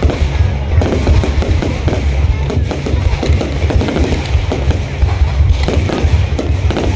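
Fireworks display going off continuously, a dense run of bangs and crackles over a heavy low rumble, with music playing alongside.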